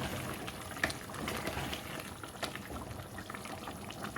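Running water, with a few light clicks.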